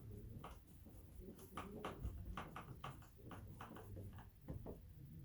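Quiet, irregular light clicks and ticks, a few a second, from a hand tool driving a door-panel screw.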